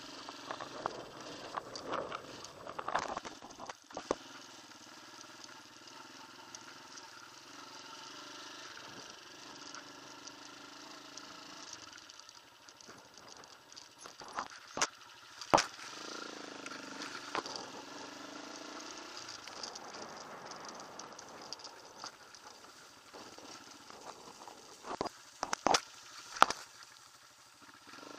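Off-road motorcycle engine running at low revs, its pitch wavering up and down midway. A few sharp knocks come through, the loudest about halfway and a cluster near the end.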